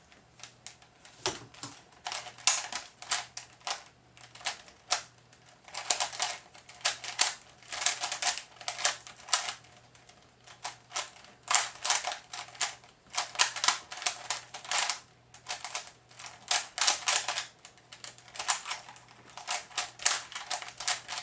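Rapid clicking and clacking of a plastic Type A 3x3 speedcube as its layers are turned at speed by hand. The turns come in quick runs broken by short pauses, starting about a second and a half in.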